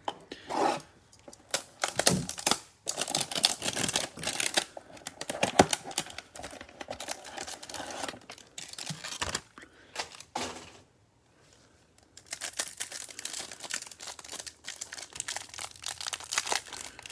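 Paperboard hanger box being torn open and its pack of trading cards slid out, then the cellophane wrapper crinkling as it is peeled off the cards. There is a short pause partway through, after which the crinkling is denser.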